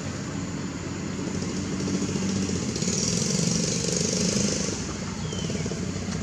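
Engine of a passing motor vehicle: a steady low hum that grows louder for about two seconds in the middle, then fades.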